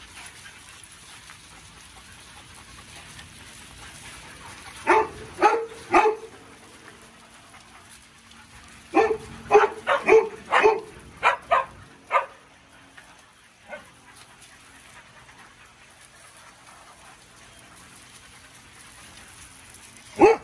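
A dog barking in short bursts: three barks about five seconds in, then a quicker run of about seven barks a few seconds later, and one faint bark after that.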